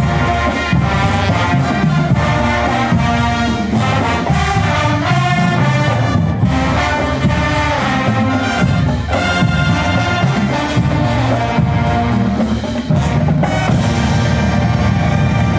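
A marching band playing live: brass horns, trumpets and trombones, carry the tune over a steady drum beat.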